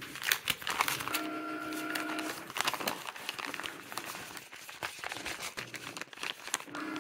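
Paper mailing envelope crinkling and rustling as it is handled and opened by hand. A printer hums steadily behind it for about a second early on and starts again near the end.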